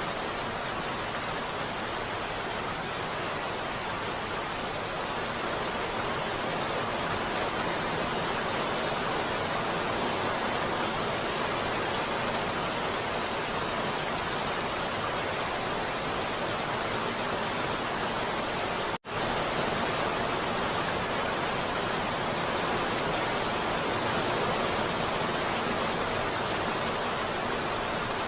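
Steady heavy rain, an even unbroken hiss, with a split-second dropout about two-thirds of the way through.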